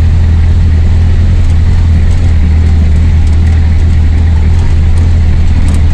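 A motor vehicle's engine running steadily, heard from on board as it travels along a dirt track: a loud, even low drone.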